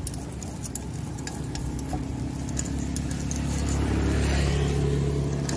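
A motor vehicle engine running close by, a steady low hum that grows louder after about three seconds, with faint light clicks over it.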